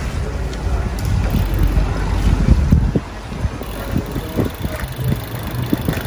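Wind buffeting the microphone of a camera riding along on a bicycle, an uneven, gusty rumble, with the hiss of the ride underneath.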